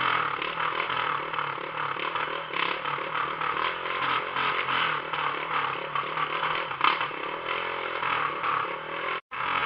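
Motorcycle engine running through a bare exhaust pipe with no muffler, its pitch shifting a little as it rides. The sound drops out for an instant near the end.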